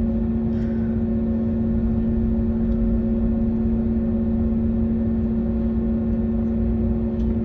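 Steady drone of a parked airliner heard from inside the cabin: a constant low hum with a fixed tone over a low rumble, from the aircraft's air and power systems or idling engines.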